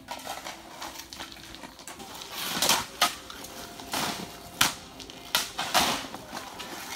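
Steel shovels scraping and crunching into a heap of sand and gravel, a string of irregular strokes that grow louder from about two seconds in, as concrete is mixed by hand.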